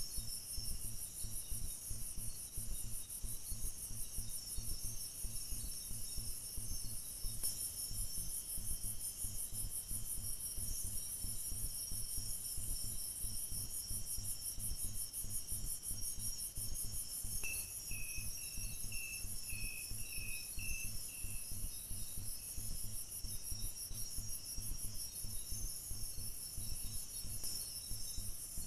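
Night insect chorus: a steady, fast, high-pitched pulsing trill, joined a little past the middle by a short run of about eight lower chirps.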